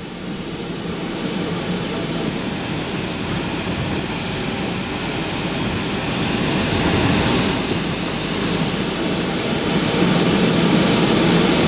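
Train sound: a steady rushing noise of a standing steam locomotive that slowly grows louder.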